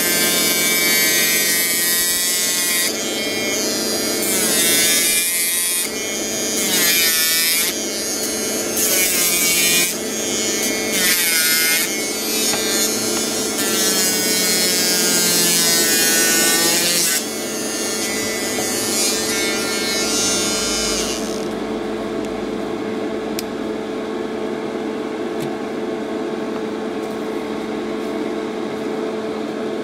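Promed 520 de Luxe electric nail file running, its handpiece whining steadily as a sanding bit files a gel nail. Over the first seventeen seconds the higher whine comes and goes and wavers in pitch; after that it settles steadier and a little quieter.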